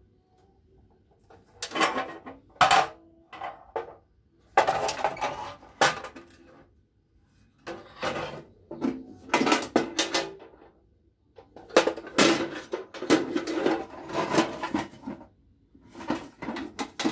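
Empty pressed-steel cantilever toolbox being handled: its sheet-metal trays and lid clank and rattle in repeated bursts, with a short metallic ring. The clatter starts about a second and a half in.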